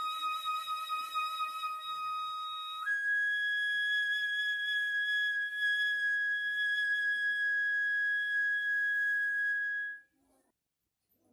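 Background flute music: a long held note steps up to a higher note about three seconds in, which is held for about seven seconds and then stops.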